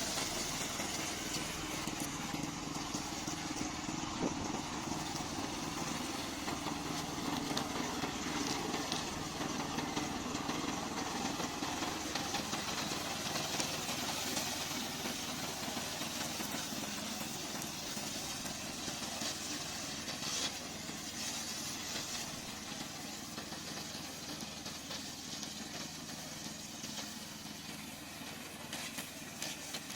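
Remote-controlled lawn mower running steadily, its motor and cutting noise growing slightly fainter over the second half.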